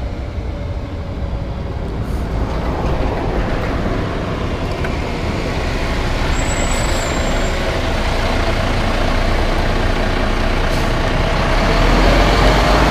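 Diesel engine and tyres of a twin-steer concrete mixer truck as it approaches and rolls past close by, a steady heavy rumble growing louder toward the end.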